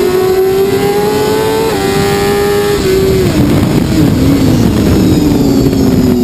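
BMW S1000RR's inline-four engine at racing speed, with heavy wind rush: it revs up, changes up a gear about two seconds in, then falls in pitch through a series of quick downshifts with short throttle blips as the bike brakes hard for a corner.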